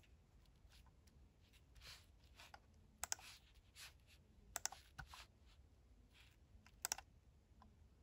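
Sparse key presses on a computer keyboard: a few scattered clicks, several in quick pairs, over faint room tone.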